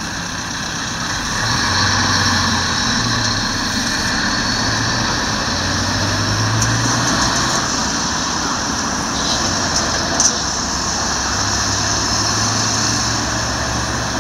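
Steady road traffic noise, with a low engine hum that swells and fades a few times.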